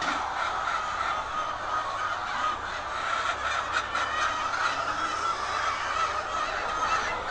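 A large flock of laying hens clucking and calling together in a dense, continuous chorus.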